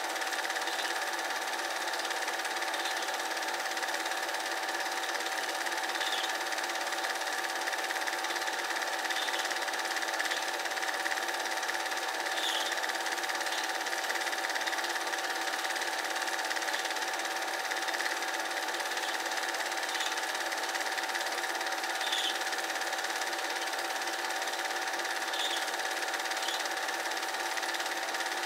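Cine film projector running: a steady mechanical whir with a constant hum and faint, irregular clicks.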